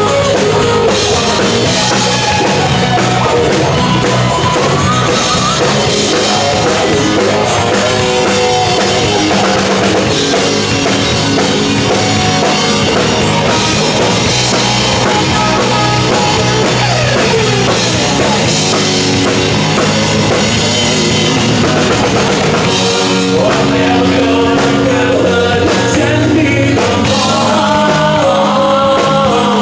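Rock band playing loudly and without a break: drum kit and guitar, with singing.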